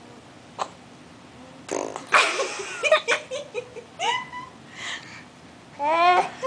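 A baby blowing a raspberry against a woman's bare forearm: a loud, fart-like spluttering noise starting about two seconds in and lasting about a second. Bursts of laughter follow, the last one near the end.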